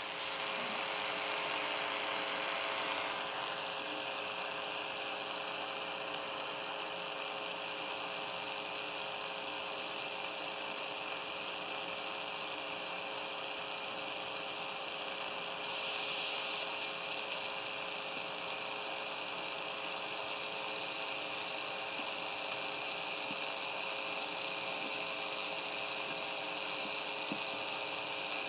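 Steady radio hiss and electrical hum with faint steady tones and no program audio. The hiss brightens about three seconds in and swells briefly around sixteen seconds.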